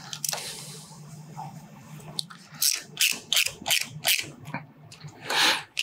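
A 4 mm Allen tool turning small steel button-head bolts into a motorcycle clutch spring retainer plate: a run of light metallic clicks, about four a second, in the middle, then a short scrape near the end.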